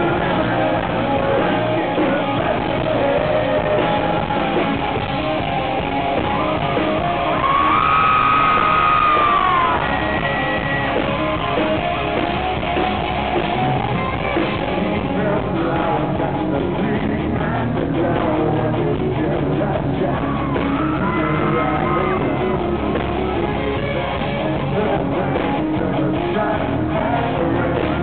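Live rock band playing: a male lead vocalist sings over electric guitar.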